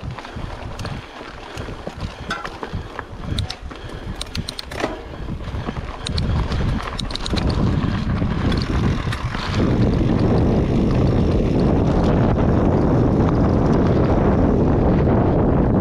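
Wind rushing over the microphone during a mountain bike ride, with clicks and rattles from the bike over the trail. The wind noise grows louder about six seconds in and again near ten seconds, then holds steady.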